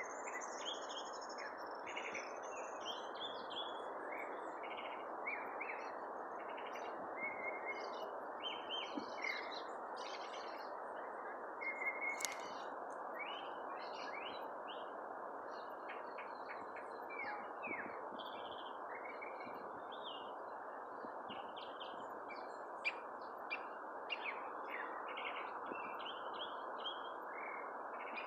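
Wild birds singing and chirping, many short calls and trills overlapping throughout, over a steady background rush of noise.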